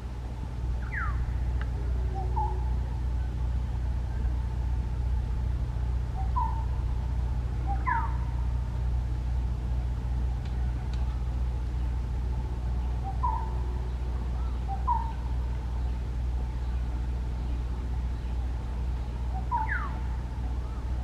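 A bird calling at intervals of a few seconds, each call a quick falling whistle or one or two short notes, over a steady low hum.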